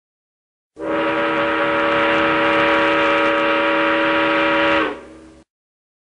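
Train horn sounding one long blast of several tones together, held for about four seconds and then cut off.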